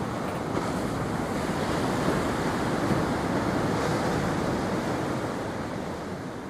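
Ocean surf breaking on a beach, an even rushing wash that swells and then slowly dies away in the last seconds, with wind buffeting the microphone.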